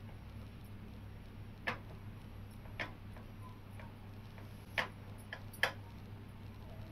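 Hand beating ground urad dal batter in a steel bowl: a few short, sharp clicks against the metal at uneven gaps, over a faint steady hum.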